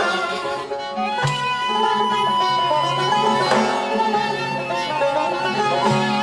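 Persian classical ensemble playing an instrumental passage on oud, long-necked lute, frame drum, ney and kamancheh, with no voice. About a second in, one note is held for about two seconds over the plucked strings, with occasional drum strikes.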